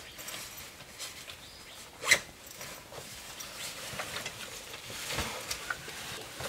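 Backpack being handled and fastened: fabric rustling and small clicks of straps and buckles, with one sharp click about two seconds in and a duller knock a little after five seconds.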